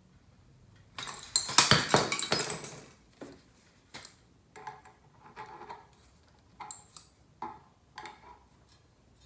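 Metal hand tools clattering, loudest for about two seconds near the start. Then follows a run of short metallic clinks and knocks as a wrench is handled and fitted down inside a metal squirrel-cage blower wheel.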